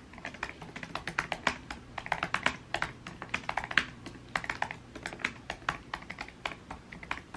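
Fast typing on a laptop keyboard: quick runs of key clicks broken by short pauses.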